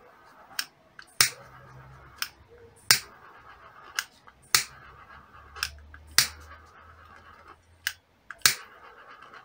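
Handheld lighter clicked over and over, about a dozen sharp clicks at uneven intervals, as it is fired to shrink heat-shrink tubing onto a float tip.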